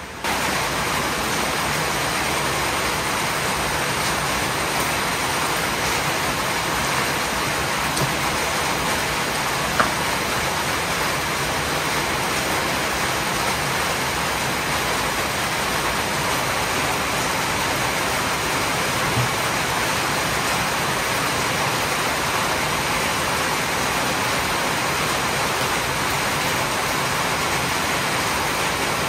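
Steady rain falling, an even hiss of rainfall, with one brief click about ten seconds in.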